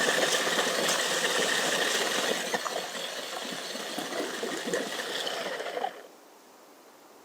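Remote-controlled car's small electric motor and gears whirring and rattling as it drives, stopping suddenly about six seconds in.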